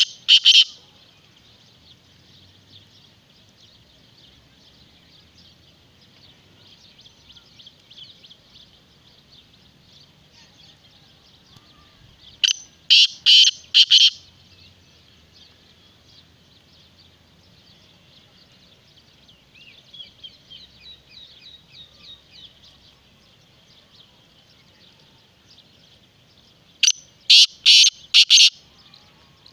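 Black francolin calling close by: a loud, harsh phrase of four or five rapid notes, given twice about fourteen seconds apart, with the tail of another right at the start. Under it runs a steady high chirping background.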